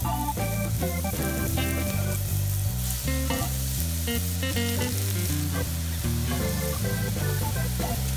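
Mushrooms sizzling as they fry in hot oil in a cast iron skillet, under background music with sustained keyboard notes.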